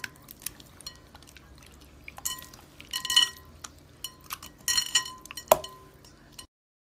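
Raw tilapia fillets being squished and turned by hand in an oily butter and seasoning coating in a glass bowl: wet squelching in three short bouts, then a sharp click against the glass. The sound cuts off abruptly near the end.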